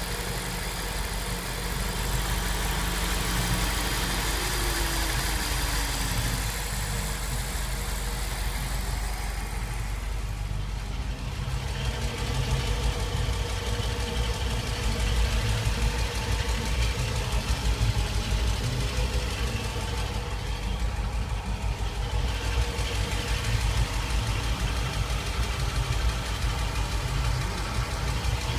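SRT8's Hemi V8 engine idling with a ticking noise.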